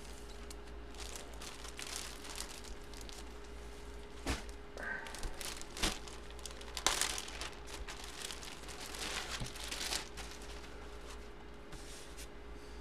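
Clear plastic bag crinkling and rustling in irregular bursts as a folded football jersey is handled in and out of it, loudest around the middle, over a faint steady hum.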